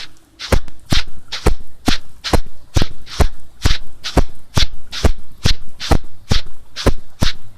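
A steady series of sharp taps, a little over two a second, evenly spaced.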